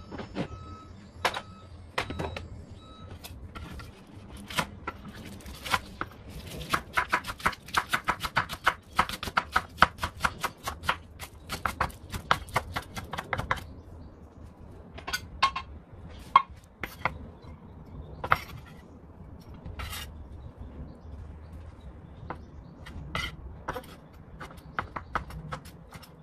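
Kitchen knife chopping green onion, then slicing bacon, on a wooden cutting board. The knife strikes the board in a fast run of about five strokes a second in the middle, and in slower, scattered cuts before and after.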